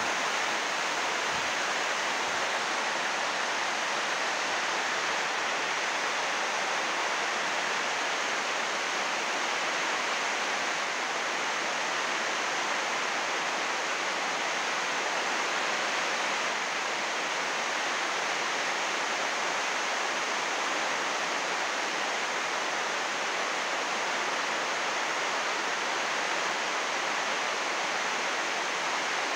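Heavy rain falling steadily on a greenhouse's 80-micron UV plastic roof sheeting: a dense, even rush of drops that does not let up.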